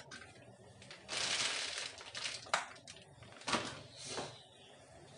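Plastic bag of maida (flour) rustling and crinkling as flour is shaken out of it onto a steel plate, then a few sharp knocks as things are set down on the counter.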